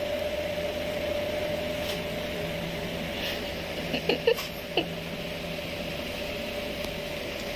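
A steady mechanical hum with a constant mid-pitched tone, with a few brief faint sounds about four seconds in.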